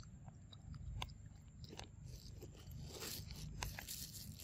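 A macaque biting into a rambutan and tearing at its tough, spiky rind with its teeth. A few sharp crunches come first, then denser crunching toward the end.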